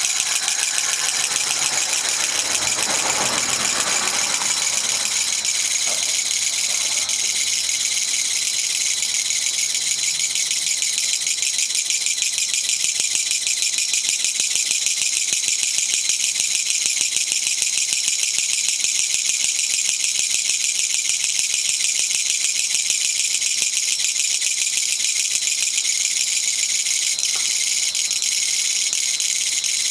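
Kutsuwamushi (Japanese katydid, Mecopoda niponensis) calling without a break: a loud, harsh, very rapid rattling buzz, the "gacha-gacha" song.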